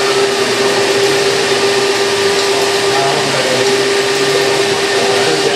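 Electric hydraulic pump of a radio-controlled model Liebherr 946 excavator running steadily as the arm moves: a steady single-pitch whine over a hiss of motor noise, breaking off briefly about halfway through.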